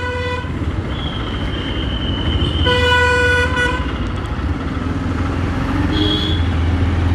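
Motorcycle ride in city traffic: a steady engine and road drone, with a vehicle horn honking twice, briefly at the start and for about a second near the middle.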